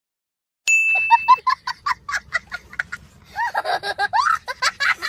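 A sound-effect ding rings once after a moment of dead silence. It is followed by a fast run of chicken-like clucking, which turns into swooping squawks near the end.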